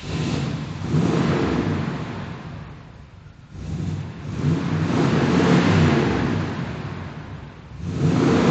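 1972 Buick Estate Wagon's 7.5-litre 455 V8 through its stock dual 2-inch exhaust, revved up and let fall back three times.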